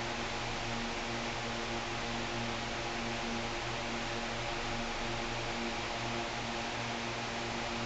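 Steady hiss with a low electrical hum underneath, unchanging throughout: workshop background noise with no tool or engine sound.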